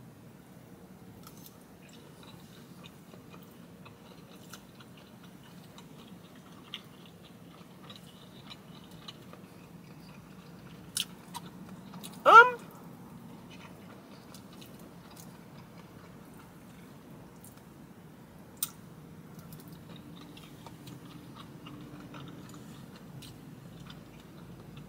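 Close-up chewing of cheese-topped chicken Alfredo pasta, with a few sharp clicks here and there. About halfway through comes one short, loud vocal sound from the eater.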